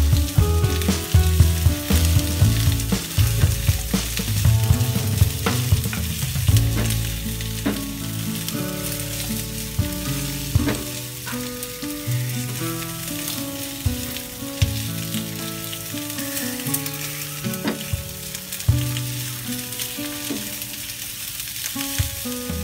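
Onion rings sizzling as they sauté in hot cooking oil in a nonstick frying pan, stirred with a silicone spatula that gives occasional sharp taps against the pan. Sustained musical notes that change pitch in steps run beneath the sizzle, louder in the first few seconds.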